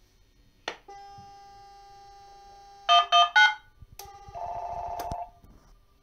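Fire reporting device automatically placing an emergency call through a test exchange: a click as the line is seized, a steady dial tone for about two seconds, then three loud DTMF tones as it dials 119. Near the end a warbling telephone ring sounds briefly, the call arriving at the exchange's desk phone.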